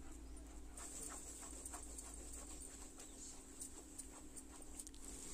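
Thick onion-and-spice masala sizzling faintly in a kadhai as it is fried down until its water cooks off. Small crackles and scrapes come through, over a steady low hum.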